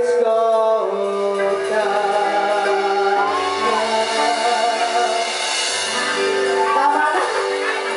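Live band with electric guitars, keyboard and drums playing a slow rock ballad through a PA, with a singer holding long notes over it.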